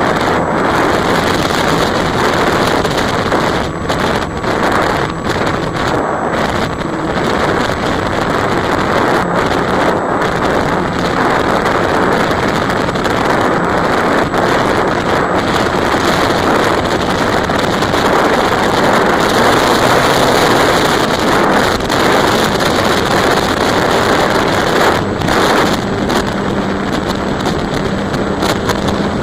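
Steady rush of air and running electric motor and propeller noise from the onboard camera of an E-flite Apprentice RC plane in flight, with brief dropouts now and then.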